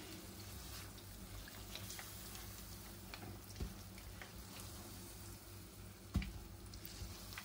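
Faint sizzle and crackle of hot oil frying tempura-battered broccoli and carrot pieces, with a single sharper knock about six seconds in.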